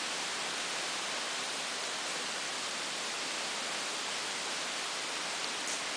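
Steady, even hiss with no distinct events, and a couple of faint ticks near the end.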